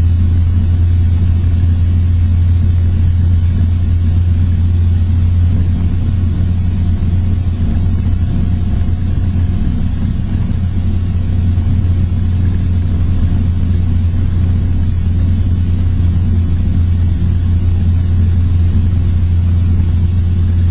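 Cessna 172's four-cylinder Lycoming piston engine and propeller running steadily in flight, a loud, even, low drone heard inside the cabin.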